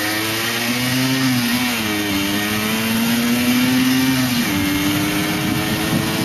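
Motorcycle engine running while riding, over a steady rushing noise. Its pitch dips about two seconds in, climbs slowly, then steps up about four and a half seconds in.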